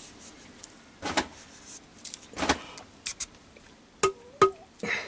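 Steel parts knocking and scraping as a tapered roller bearing cone is fitted onto a steel spindle and a steel tube is set over it, ending in two sharp, ringing metallic taps about half a second apart.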